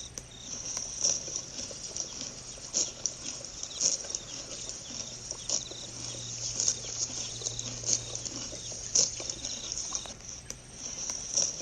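Field recording of a kangaroo in the Australian bush: irregular soft clicks and short sounds over steady high insect chirring, with a low hum that swells in the middle.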